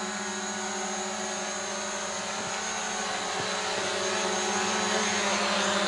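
Small DJI Mavic-style folding quadcopter drone hovering low just above the ground as it comes back in to land: a steady, high buzzing whine of its four propellers, growing a little louder near the end.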